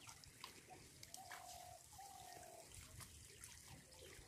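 Faint trickling and dripping of water running off the mesh of a bheshal lift net as it is raised out of the water. Two short steady tones sound one after the other a little over a second in.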